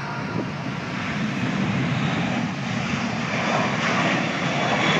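Jet airliner's engines running on the runway: a steady, broad rush that grows slowly louder.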